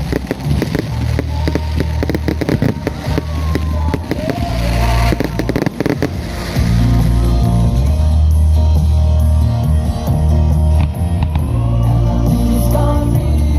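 Fireworks crackling and banging in quick succession over loud music with a deep bass. The bangs are densest in the first half, and after that the music dominates.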